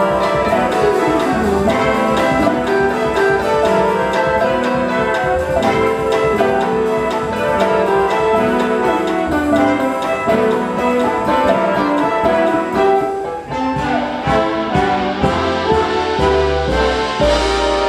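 Live big band playing a bossa nova ballad: saxophones and brass sustain full chords over guitar, upright bass, piano and a drummer's steady cymbal. Near the end the ensemble swells, with a cymbal wash.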